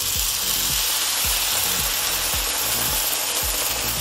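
Red wine poured into a hot skillet of seared lamb and vegetables, hissing hard as it boils on contact and throws up steam. The hiss starts just as the wine goes in and stays loud and steady: the pan is being deglazed.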